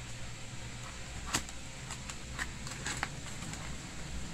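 Handling of a small cardboard product box being opened: a sharp click a little over a second in, then a few lighter clicks and taps, over a low steady hum.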